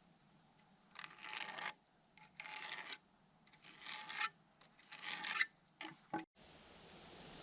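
Four rasping strokes of a hand tool scraped across wood, each about half a second long and about a second apart, followed by a couple of short knocks.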